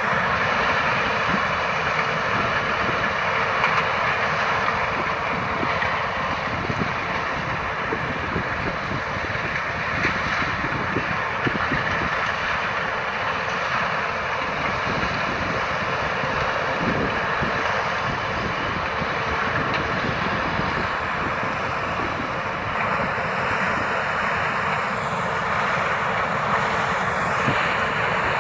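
Claas combine harvester with a maize header running while harvesting corn: a steady engine and threshing drone with a faint constant hum underneath.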